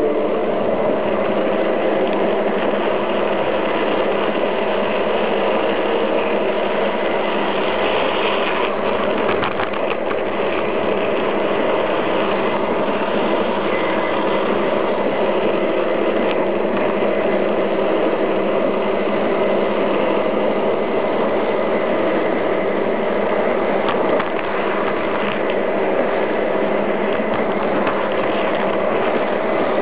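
Garden-scale model train running steadily along its track, its electric motor and gears whirring and its wheels rolling on the rails, heard close up from on board the train.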